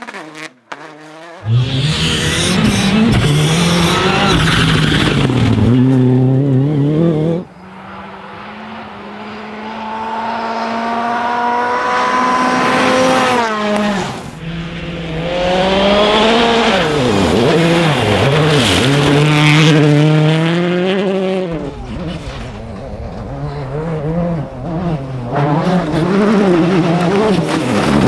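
Rally car engines revving hard, their pitch climbing and dropping through the gears, in several passes joined by sudden cuts about half a second and about seven seconds in.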